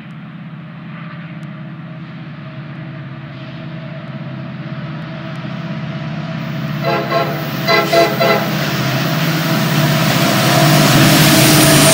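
EMD SD70ACe diesel locomotive approaching at the head of an intermodal train, its engine hum growing steadily louder. It sounds a few short blasts of its horn about seven seconds in, and the engine and wheel noise swells as it draws level near the end.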